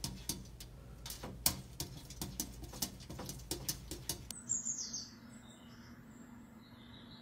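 Light, irregular taps of a kitten's paws against a mirror, a few a second. About four seconds in they give way to a few faint, short, falling bird chirps from a television.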